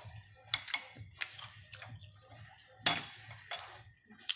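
Wooden chopsticks clicking and tapping against a ceramic plate: about half a dozen sharp, irregular clicks, the loudest about three seconds in.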